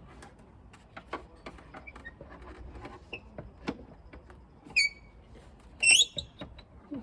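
Light clicks and knocks of plastic van wing-mirror parts being handled and fitted, with two short high squeaks about five and six seconds in, the second the louder.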